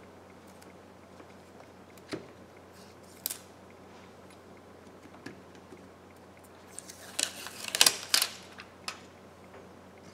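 Light clicks and handling noise from small iPhone 11 screen parts being picked up and fitted, with a few isolated clicks at first, then a denser run of clicks and rustling about seven to eight seconds in.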